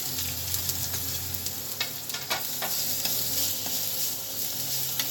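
Crushed garlic and thoothuvalai leaves frying in hot ghee with mustard seeds: a steady sizzle with a few sharp crackles.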